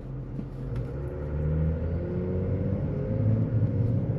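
Inside the cab, a 3.0-litre Duramax inline-six turbodiesel pulls away from idle, its revs and loudness rising from about a second in, and it sounds a little clackety. The engine is in an active diesel particulate filter regeneration, injecting fuel on the exhaust stroke.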